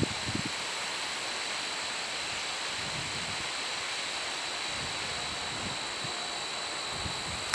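Steady wind hiss through trackside trees and over the microphone, with a couple of low wind buffets at the start and a steady high-pitched whine underneath.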